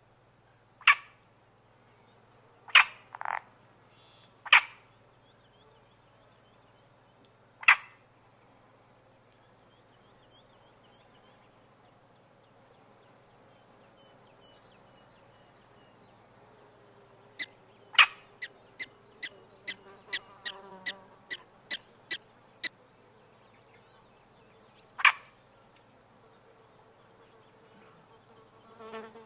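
Frogs calling in the wild: short, sharp calls, scattered singly and then in a fast run of about a dozen, two or three a second, over a faint steady high hum.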